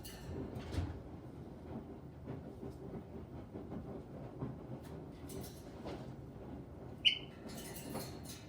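Caique parrot giving one short, sharp, high chirp about seven seconds in, over a steady low rustling with small clicks and knocks.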